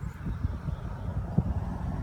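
Low, uneven wind rumble on the microphone, with a short bump about one and a half seconds in.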